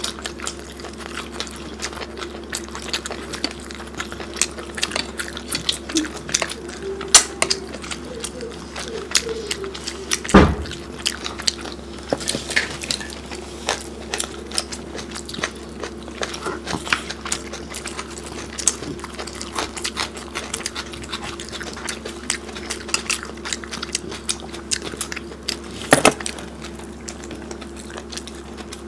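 Two people eating rice and curry by hand: wet chewing, smacking and small clicks from mouths and fingers working the rice, with two louder knocks, one about ten seconds in and one near the end, over a steady low hum.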